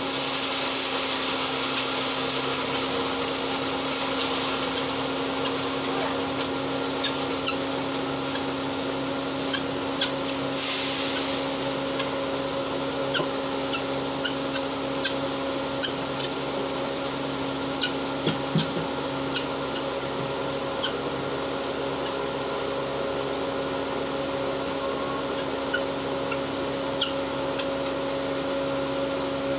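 Electric posho mill (a hammer mill driven by an electric motor) running steadily while grinding maize into flour: a constant motor hum under a noisy rush, with scattered small ticks.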